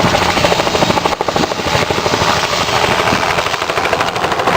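Helicopter running close by, its rotor blades giving a rapid, even chopping.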